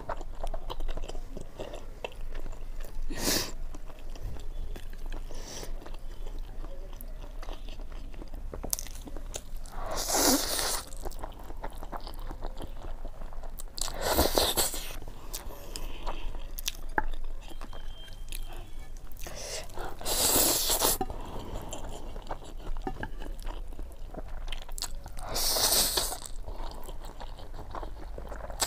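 Close-up eating sounds of a person chewing spicy instant noodles, with moist clicking chews throughout. Five louder noisy stretches, each about a second long, come every four to six seconds, like slurps of noodles.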